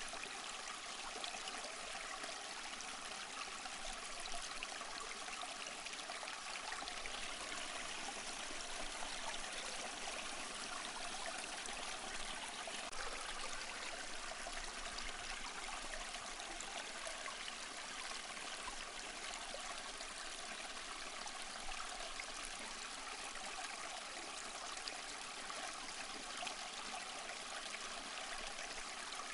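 Small stream flowing, a steady, even rush of running water.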